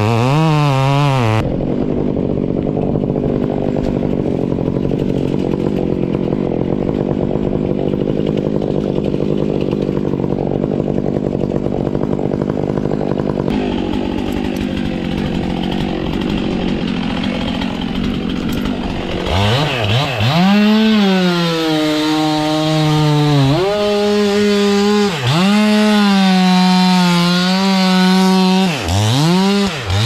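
Stihl two-stroke chainsaw running steadily at low speed for most of the time, then revved hard several times near the end, its pitch climbing and dropping back with each blip of the throttle.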